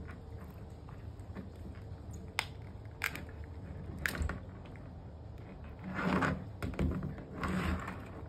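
Spiny lobster shell clicking and crackling as the tail is twisted off the body: a few sharp clicks, then louder scraping and crunching of the shell against a plastic cooler lid near the end.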